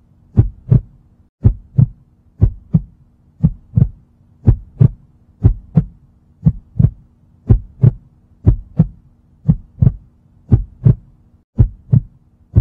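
Heartbeat sound effect: paired low thumps, lub-dub, repeating about once a second, over a faint steady hum.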